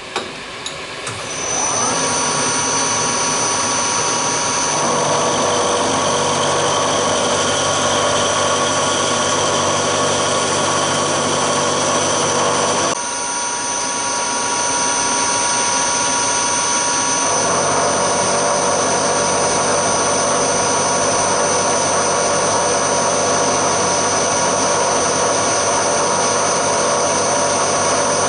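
Vertical milling machine running up about two seconds in, then an end mill cutting across a steel block: a steady high whine with cutting noise. The sound drops suddenly about halfway through and picks up again a few seconds later as the cut continues.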